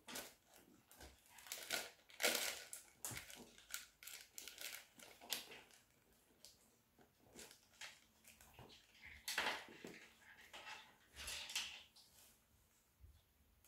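Irregular crinkling and rustling of tissue paper and packaging as a quilted leather handbag is handled and its flap opened, in a series of short rustles that are loudest about two seconds in and again near the end.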